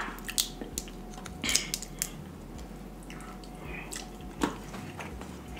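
Snow crab legs being picked apart by hand and eaten. Scattered sharp shell cracks and wet, squishy clicks of sauce-coated meat are heard, with chewing.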